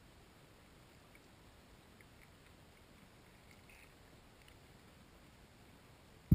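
Underwater sound of carp feeding on the bottom: faint scattered ticks over a low steady hiss, then a sudden dull thump right at the end.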